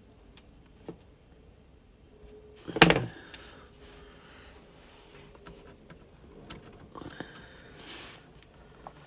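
Hands handling a plastic model engine shed and its LED wiring: faint rustling and small clicks, with one sharp knock about three seconds in.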